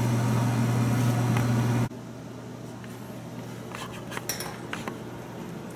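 Steady low hum of a kitchen fan over the stove, which cuts off abruptly about two seconds in. After that, a few light clinks of ceramic bowls and a pot on a stone countertop.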